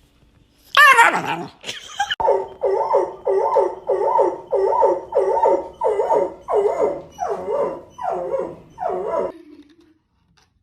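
A dog giving a short, loud, high cry about a second in, then a steady run of about fourteen pitched barking calls, two a second, that stop shortly before the end.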